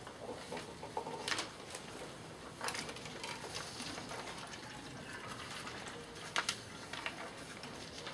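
Room of seated people writing on paper: faint background with scattered paper rustles, pen scratches and small knocks, the loudest about a second in and again near six and a half seconds.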